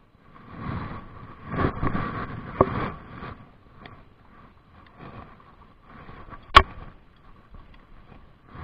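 Rustling and wind noise on a moving camera's microphone, with two sharp clicks: a small one about two and a half seconds in and a louder one about six and a half seconds in. A faint steady whine runs underneath.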